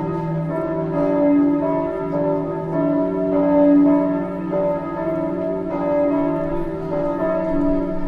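Several church bells of different pitches ringing together, their strokes overlapping continuously.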